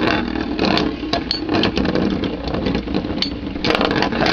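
Metal Fusion Beyblades, Galaxy Pegasis and Meteo L-Drago, spinning and clashing in a plastic battle stadium: a steady whirring grind broken by frequent sharp clicks as the tops strike each other and the stadium wall.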